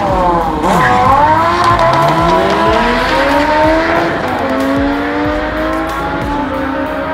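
A Lamborghini and a sport motorcycle launching side by side in a drag race, their engines revving hard and rising in pitch through the gears, with a sharp drop at an upshift about four seconds in.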